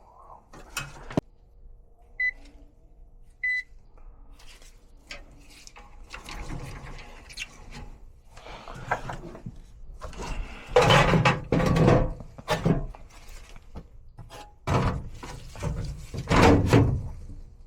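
Two short high electronic beeps, then a run of irregular knocks, thuds and handling noises that grow louder toward the end.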